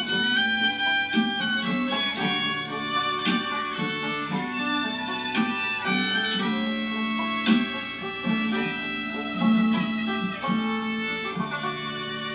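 A live band playing an instrumental passage with no singing, pitched string instruments holding and changing notes over a moving bass line.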